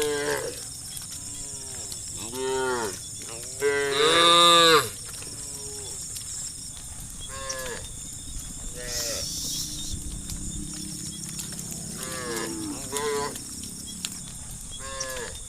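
A herd of cattle mooing: many separate calls from several cows, some overlapping, each rising and then falling in pitch. The loudest is one long moo about four seconds in.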